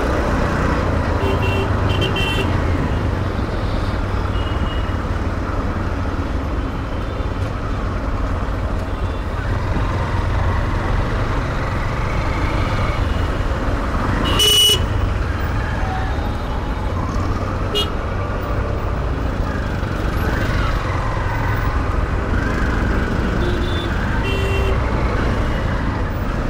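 Busy road traffic heard from a motorcycle in slow city traffic: a steady low rumble of engines and wind, with short horn toots from surrounding vehicles, the loudest about fourteen and a half seconds in.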